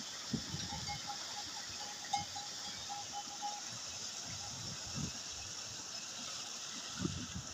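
Persian wheel turned by a bullock, its chain of rusted metal buckets pouring water steadily into the trough, with occasional low knocks. A quick run of light ringing notes sounds during the first few seconds.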